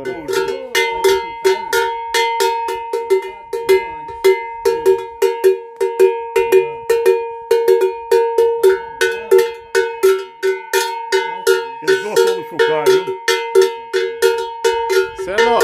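Large metal cattle bell (chocalho) with its clapper, shaken by hand in a steady rhythm: a clank about three times a second, each one ringing on into the next.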